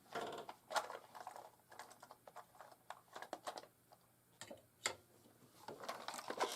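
Hands rummaging through a container of small electronic parts: faint, irregular clicks and rattles as components are moved and picked out.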